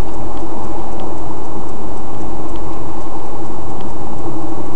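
Steady engine and road noise of a moving car heard from inside the cabin, loud and unvarying, with a low hum and a few faint ticks.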